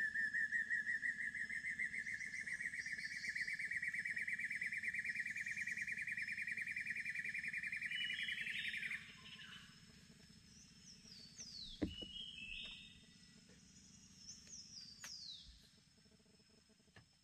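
Rainforest animal calls: a rapidly pulsing high whine that slowly rises in pitch and stops abruptly about nine seconds in, then scattered bird calls with quick falling whistles.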